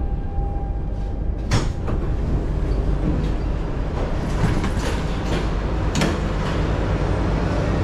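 Lisbon Metro carriage rumbling steadily as the train comes to a stop, with a knock about a second and a half in. Near the end the carriage's sliding doors open with a clunk.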